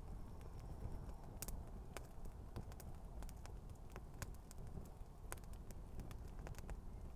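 Campfire burning with shoes on it, crackling: irregular sharp pops and snaps over a steady low rumble of the flames.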